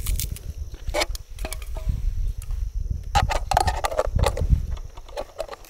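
A few light clicks and taps as a small knife cuts a green vegetable over a metal mess tin, then a clatter of metal on metal as the tin's lid is set on, about three seconds in. A low rumble runs underneath.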